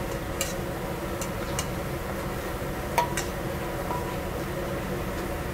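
Steady mechanical drone of a high-powered commercial kitchen burner and ventilation, with a few light metal clinks of a steel ladle against a steel bowl as red chili pepper is stirred up to go into the soup; the sharpest clink comes about three seconds in.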